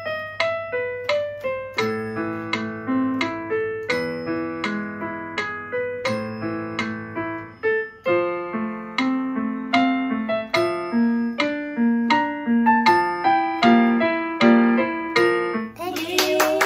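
An electronic keyboard playing a melody in struck notes that fade after each key press, with lower accompanying notes joining about two seconds in. The playing stops shortly before the end, followed by a brief burst of noise.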